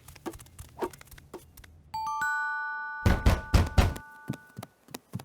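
Cartoon sound effects: scattered light taps, then a single bright bell chime about two seconds in that rings on for over two seconds. A cluster of heavy thuds comes about three seconds in.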